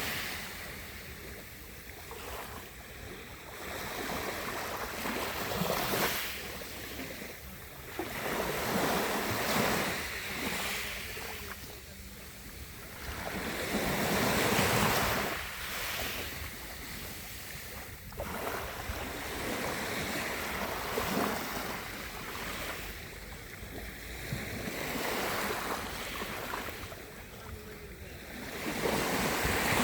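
Mediterranean Sea waves washing onto the shore, each one swelling and falling away, a new wave every three to four seconds.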